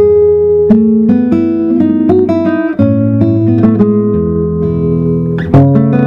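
Nylon-string classical guitar played fingerstyle: a sharp chord at the start, then a quick run of plucked notes, and another hard-struck chord near the end.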